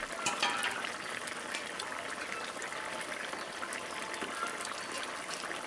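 Fish curry boiling hard in a large metal karahi: a steady bubbling with many small pops from the gravy.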